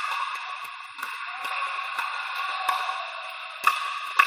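Pickleball paddles hitting the plastic ball: sharp pops about once a second, the loudest near the end, each ringing out in a large echoing hall.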